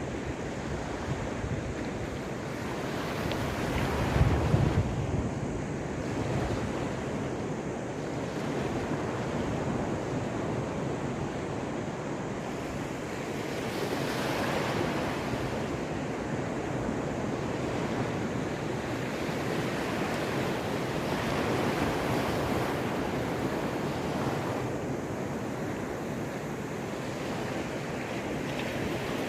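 Caspian Sea waves washing onto the shore, the surf swelling and easing every few seconds, with a louder, deeper surge about four seconds in.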